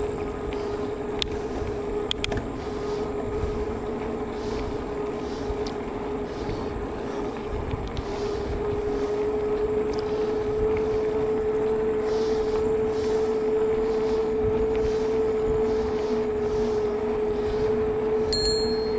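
E-bike's electric drive motor whining steadily over wind and tyre noise, its pitch rising slightly and getting louder from about halfway through as the bike speeds up. A brief high ring sounds near the end.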